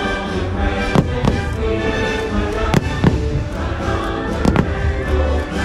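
Aerial firework shells bursting with sharp bangs, about six in a few seconds, some in quick pairs. Under them runs the fireworks show's music.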